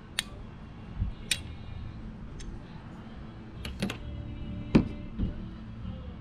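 Scattered light clicks and knocks, a handful of them, the loudest about five seconds in, over a low steady hum.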